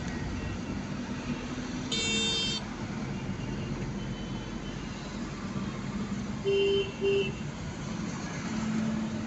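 Steady road and engine noise inside a moving car's cabin, with a vehicle horn honking once for about half a second about two seconds in, and a second, lower-pitched horn giving two short beeps around six and a half seconds in.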